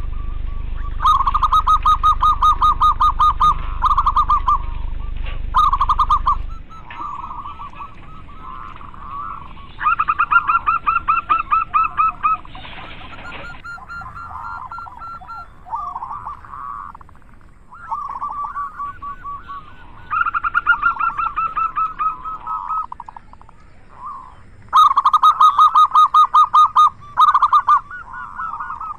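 Several zebra doves (local perkutut), male and female, cooing in rapid stuttering trills of repeated notes, each burst lasting one to three seconds, with birds at slightly different pitches overlapping. A low hum sits under the first few seconds and stops abruptly.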